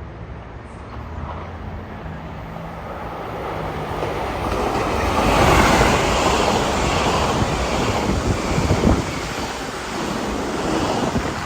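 A train passing at speed through a station. Its rushing roar builds to a peak about halfway through, and wheel clicks come through near the end.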